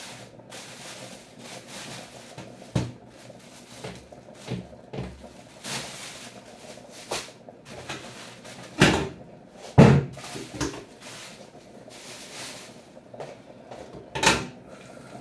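Kitchen handling noises at a sink: a metal grater and a carrot knocked and set down among plastic bags, a scattering of clatters with two loud thumps about nine and ten seconds in and another near the end, and short bursts of rustling.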